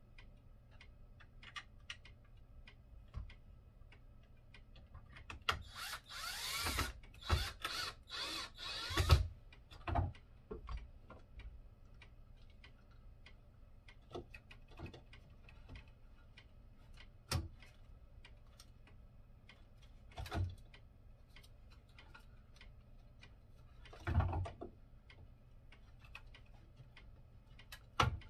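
A cordless drill driving screws in several short runs about six seconds in, its motor pitch rising as it spins up. Single knocks of parts and tools on the table follow every few seconds.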